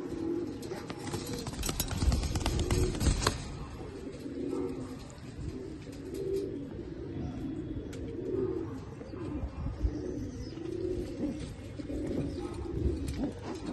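Domestic pigeons cooing, low rolling coos repeating about once a second, with a burst of clicks and rustling between about one and three seconds in.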